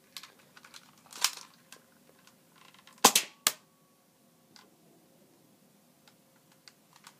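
Homemade airsoft gun, a Nerf blaster fitted with a pen-tube barrel for BBs, handled with a few light clicks and then fired. Two sharp snaps about half a second apart come around three seconds in.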